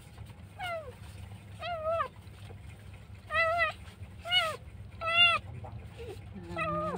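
Kitten meowing: five short, high meows about a second apart, each rising then falling in pitch, followed by a lower, drawn-out call near the end.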